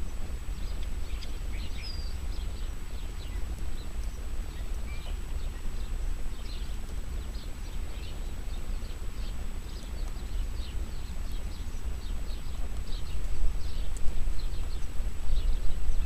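Small birds chirping in many short calls over a low, uneven rumble.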